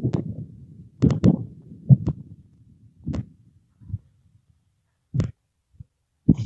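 Irregular knocks and bumps of wooden beehive frames being handled and pried in the top super, about ten separate hits spaced unevenly.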